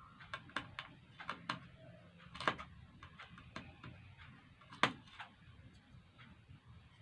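Irregular small clicks and taps of a screwdriver and loose metal and plastic parts as a laptop's heatsink and fan assembly is unscrewed and lifted; two sharper knocks stand out, about two and a half and five seconds in.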